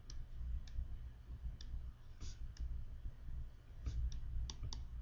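A pen stylus tapping and scratching on a tablet while writing by hand: faint, irregular clicks and short strokes over a low steady hum.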